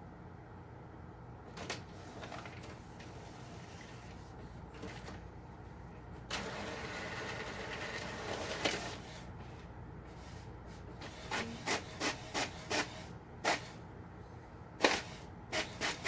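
HP Officejet inkjet printer's mechanism working: a few seconds of steady mechanical running over a low hum, then a quick run of clicks about three a second, and a few sharper clicks near the end.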